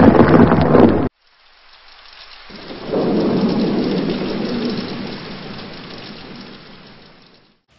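Thunderstorm sound effect: a loud burst of rain-and-thunder noise that cuts off suddenly about a second in, then a deep rumble of thunder that swells around three seconds in and slowly dies away.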